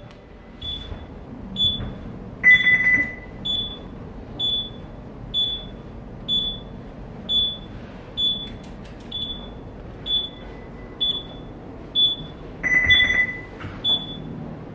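Ship's bridge console alarm sounding a short high beep about once a second, steady and unbroken, with a longer, lower tone twice, a couple of seconds in and near the end, over a faint low hum.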